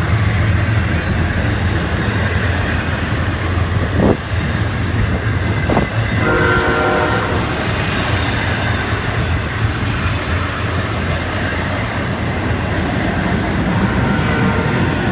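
Freight train's container cars rolling past close by: a steady low rumble with wheels clattering over the rails. About six seconds in, a horn sounds briefly.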